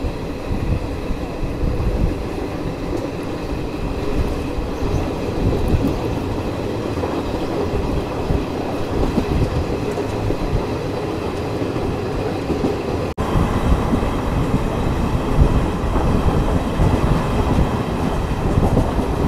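Passenger train of old ICF coaches running at speed, heard from its open doorway: a steady running noise of wheels on the track. About two-thirds of the way through it breaks off for an instant and comes back louder and brighter.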